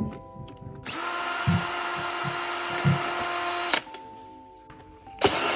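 Cordless drill-driver spinning, backing screws out of a metal electronics cover. It runs steadily for about three seconds starting about a second in, stops, then starts again near the end.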